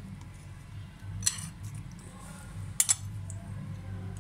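A steel spoon clicking a few times against a glass bowl and grinder jar as soaked rice is scooped and tipped in, over a low steady hum.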